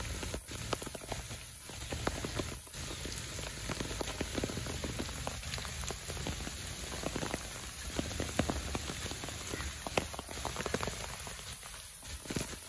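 Steady rain falling on trees and bare, wet earth, with many sharp ticks of single drops landing close by.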